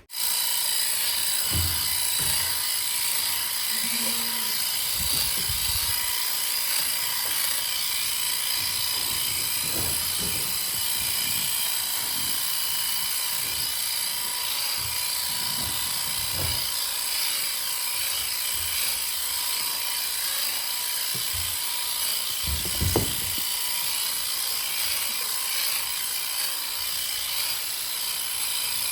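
Electric sheep shears running steadily with a high whirring hum while dagging lambs, clipping dirty wool from their rear ends. A few dull knocks are heard, the loudest one a little over twenty seconds in.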